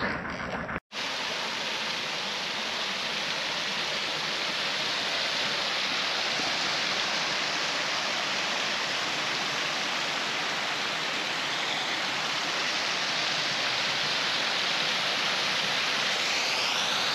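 Water pouring over a small canal weir into a churning pool, a steady rushing splash. Under a second in, an engine running before it cuts off abruptly.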